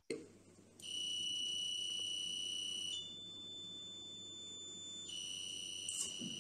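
Electronic audio-feedback tones of a single-switch electric-bed control: a steady lower tone for about two seconds, then a higher, quieter tone for about two seconds, then the lower tone again. The low tone is the cue for bed up and the high tone for bed down. A click comes just before the first tone and another about six seconds in.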